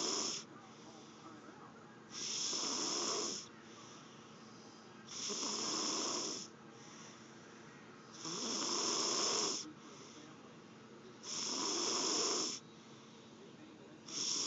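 Snoring in a slow, even rhythm: a loud, hissing snore about every three seconds, each lasting a little over a second, with a softer breath in between.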